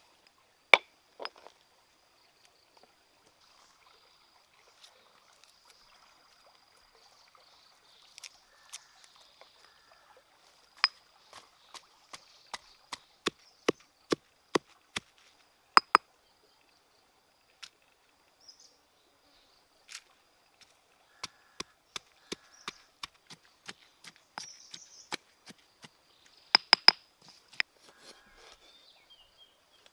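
Stone pestle pounding chillies and garlic in a stone mortar: irregular sharp knocks, coming closest together and loudest in the middle stretch. Near the end, a quick cluster of sharp knocks from a knife cutting limes on a wooden board.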